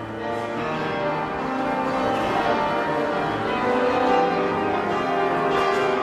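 Music with many overlapping held notes changing in steps, accompanying a movement routine.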